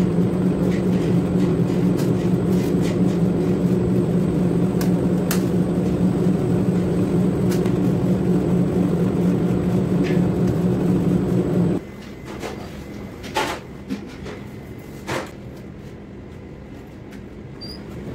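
An electric machine motor running with a steady hum, which cuts off suddenly about twelve seconds in. After that there are only a few light knocks over a quieter background.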